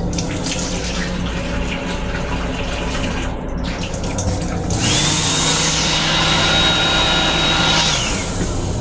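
Water running from the sensor faucet into the sink of an M7 railcar restroom. About five seconds in, a blower motor spins up, runs for about three seconds with a steady high whine, then winds down: the automatic hand dryer over the sink. A low steady hum runs underneath.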